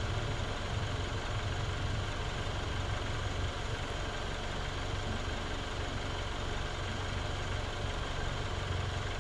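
Land Rover Freelander 2 engine idling steadily, a low even hum.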